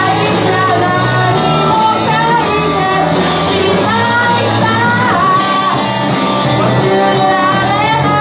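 Live rock band playing loudly in a large hall: guitars and a drum kit, with a voice singing over them.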